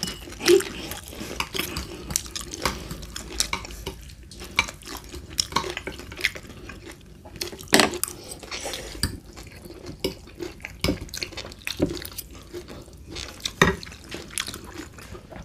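Forks clinking and scraping against a plate while spaghetti is twirled and eaten, in irregular sharp clicks, with close-up eating sounds in between.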